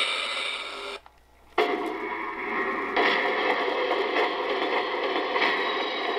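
A model train boxcar's onboard flat-spotted-wheel sound effect, with its sound switch on maximum, playing as the car rolls along the track. A short burst stops about a second in, and after a brief pause gives way to a steady, rough, noisy sound.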